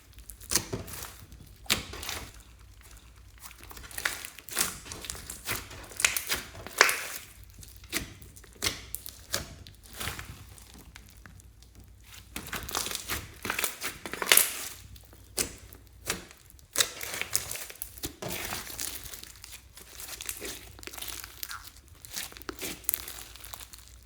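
Slime being squeezed and stretched by hand, with irregular sticky crackles and clicks as trapped air bubbles pop.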